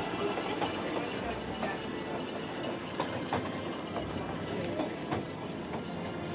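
A train running, heard from inside the carriage: a steady running noise with scattered clicks and knocks from the wheels and coach.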